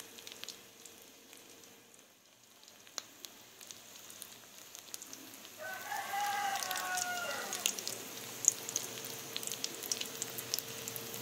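Slices of embutido frying in shallow oil in a pan, crackling and popping throughout. About six seconds in, a rooster crows once for about two seconds, the loudest sound here, its call falling in pitch at the end.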